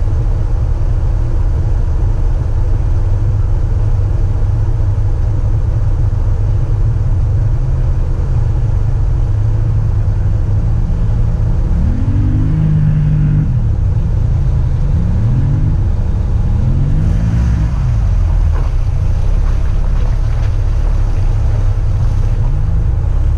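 Lifted VW Jetta wagon driving on a dirt trail: a steady low engine and road drone, with the engine revving up and dropping back several times about halfway through and once more near the end.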